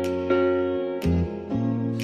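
Background music: an instrumental stretch of a soft pop song between sung lines, with held keyboard notes and new notes struck about a third of a second in and again about a second in.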